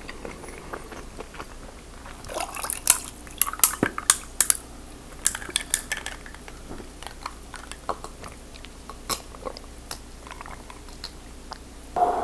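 Quiet chewing at first, then a run of sharp clinks of ice cubes knocking in a drinking glass of ice water as it is lifted to drink, over about four seconds. A short louder handling sound comes near the end as a lobster tail is picked up.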